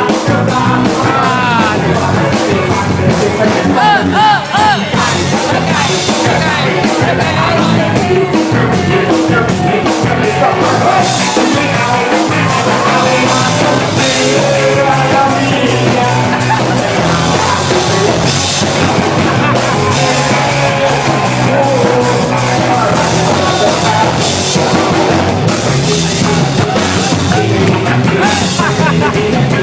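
Loud rock music with a singing voice over drums.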